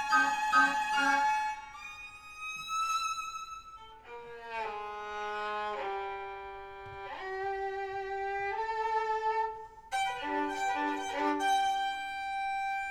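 Violin playing slow, held notes that slide from one pitch to the next, with a quicker figure of short repeated notes coming in about ten seconds in.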